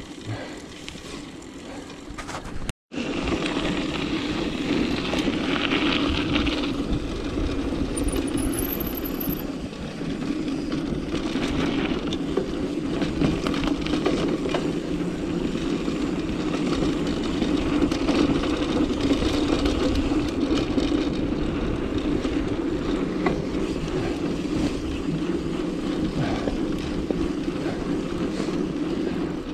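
Mountain bike riding over a dirt singletrack: steady tyre roll and bike rattle mixed with wind buffeting the camera microphone. The sound cuts out completely for a moment about three seconds in, then returns louder.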